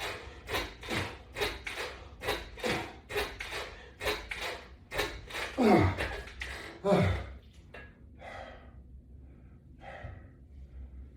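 A man breathing hard through a set of resistance-band reps: quick, even exhalations about two a second, then two loud groans falling in pitch about six and seven seconds in, followed by slower, fainter breaths as he recovers.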